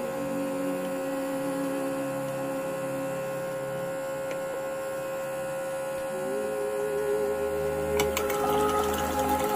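USAC350-Peri peristaltic pump dispenser running with a steady motor hum made of several fixed tones, a new tone joining partway through. Near the end come clicks, then crackling as water starts to pour into the jar.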